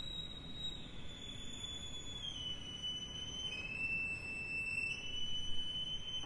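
Violin playing a slow line of very high held notes, each held for about a second or more, stepping down in pitch three times and then rising once about five seconds in.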